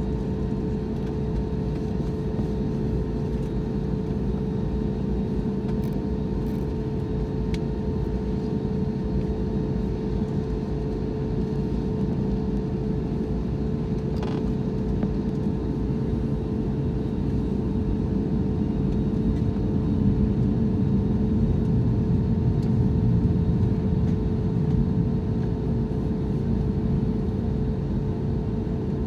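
Cabin noise inside an Airbus A321neo on the ground with its engines at idle before the takeoff roll: a steady low rumble with a constant hum, growing a little louder about two-thirds of the way through.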